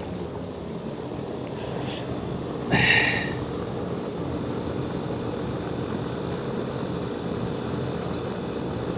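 Steady mechanical hum, with a short metallic scrape or clank about three seconds in as the pump motor is shifted into place.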